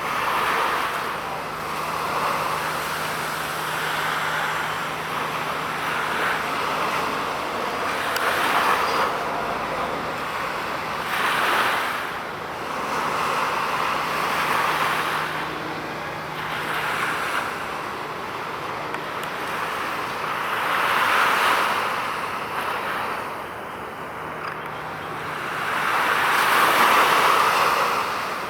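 Waves washing onto a beach, a swell of surf every few seconds. Under it runs a faint steady low hum that drops out now and then.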